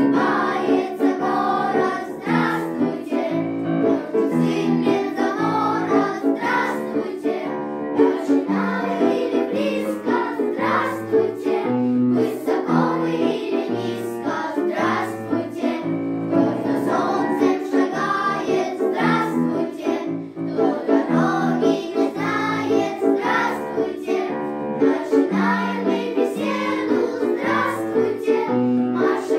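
Children's choir singing in unison, with a piano accompaniment.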